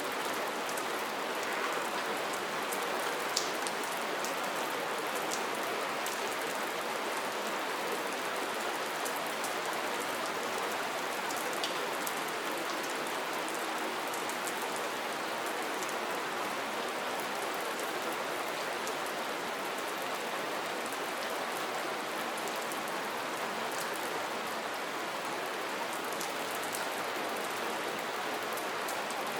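Steady rain falling, an even hiss with occasional sharper drop ticks scattered through it.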